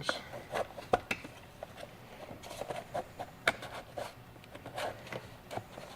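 Scattered light clicks, taps and rustles of hands handling the jump box's plastic case and wiring as the parts are fitted back in place.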